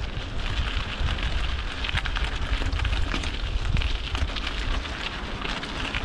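Mountain bike tyres crunching and crackling over a loose gravel track, with wind rumbling on the action camera's microphone.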